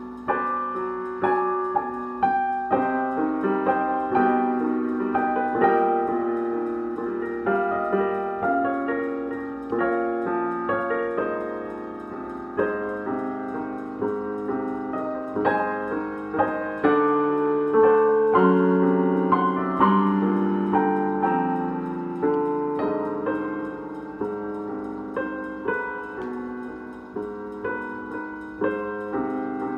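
Digital piano played with both hands: chords and a melody line, notes struck in a steady flow and left to ring.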